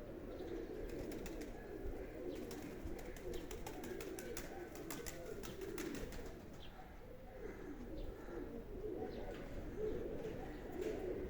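Domestic pigeons cooing continuously in overlapping low, wavering coos, with a run of sharp clicks through the first half.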